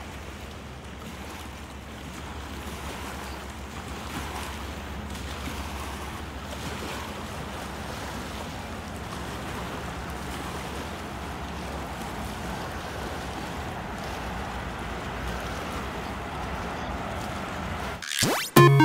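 Small waves from the Rhine washing against a sandy riverbank, a steady rushing of water with wind on the microphone and a low rumble underneath, growing slightly louder over time.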